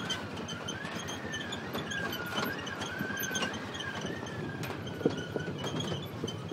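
Open off-road buggy driving over rough ground: a steady, slightly wavering high whine over rumbling and rattling, with a few knocks. The whine fades about a second before the end.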